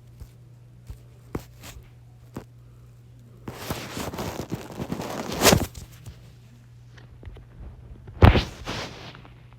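A few light clicks, then a couple of seconds of rustling that ends in a loud knock, and a loud thump near the end, over a steady low hum.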